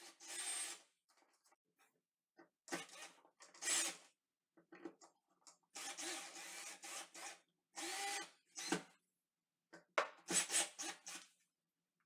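Ryobi cordless drill driving the mounting screws of a GFCI outlet into the electrical box. The motor whirs in about five short bursts, stopping and starting between them.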